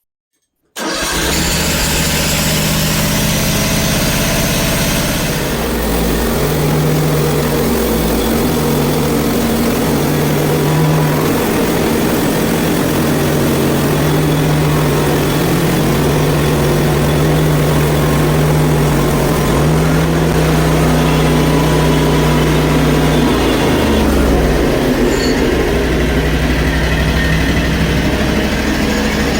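Portable bandsaw mill running, its gas engine under load as the band blade saws the opening cut through a hard maple log. The engine pitch shifts a few times over a steady high rushing of the cut.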